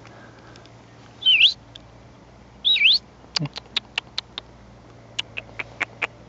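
A person whistling twice to call a puppy, each short note dipping then rising in pitch, followed by a quick run of about ten sharp mouth clicks and smacks to coax the dog over.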